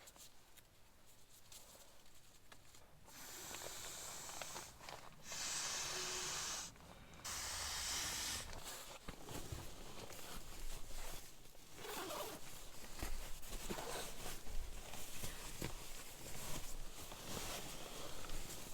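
Inflatable camping pillow being blown up by mouth: three long breathy exhalations into the valve, about 1.5 s each, followed by rustling and handling of the pillow and bedding.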